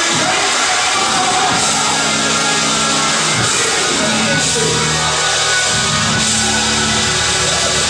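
Loud band music with drums and held chords, playing steadily.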